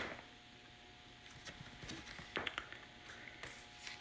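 Faint taps and clicks of trading cards and their plastic being handled on a tabletop, with a sharp click at the start, over a faint steady hum.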